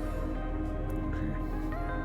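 Soft, steady background music with sustained, ambient held tones.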